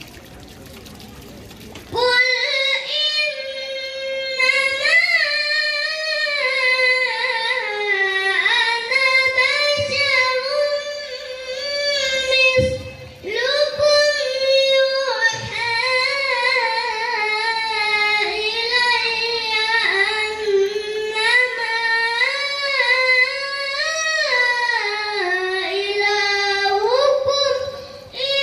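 A boy chanting Qur'an recitation (tilawah) in long melodic phrases with held notes and ornamented runs. It begins about two seconds in, with a short breath pause near the middle and another near the end.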